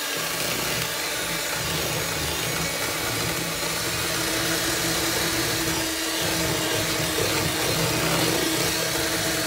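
Electric mixer running steadily, beating eggs and sugar into a pale, thick batter.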